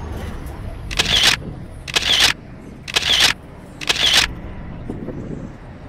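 Four short hissing bursts, evenly spaced about a second apart, over a low background rumble.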